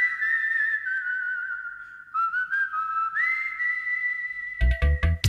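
Whistled melody in two phrases of long held notes, each sliding up into a steady, slightly wavering pitch. Near the end, strummed acoustic guitar comes in.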